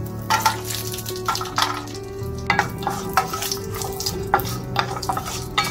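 Mustard seeds, curry leaves and cashew nuts frying in hot ghee and oil in a frying pan: a sizzle with irregular sharp pops as the seeds splutter. A wooden spatula stirs the pan.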